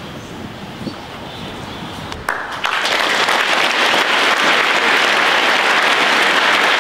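Audience applauding, starting suddenly about two seconds in after a quieter stretch of room noise.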